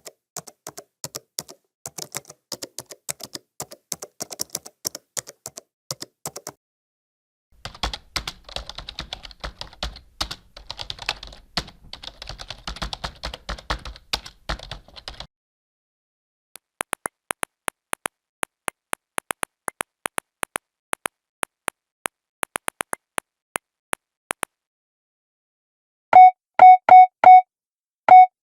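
Computer keyboard typing in a loose run of key clicks, then a faster, denser flurry of typing, then a steady string of single sharp key clicks about two a second. Near the end come five short keypad beeps, all on one pitch: four in quick succession, then one more.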